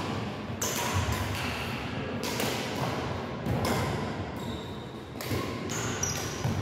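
Badminton rally: rackets striking the shuttlecock, footsteps and brief high shoe squeaks on the wooden court floor.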